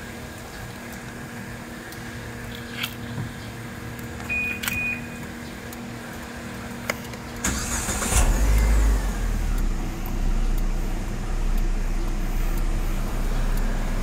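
A few clicks and a short electronic beep, then about seven and a half seconds in the Proton Persona's four-cylinder petrol engine is cranked by its starter for a moment, catches, and settles into a steady idle, started with the aftermarket keyless push-start button.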